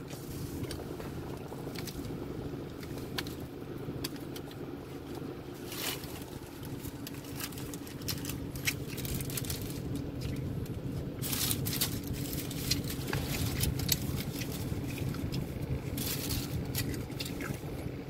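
Steady low hum of a car idling, heard inside the cabin, with scattered light clicks and rustles.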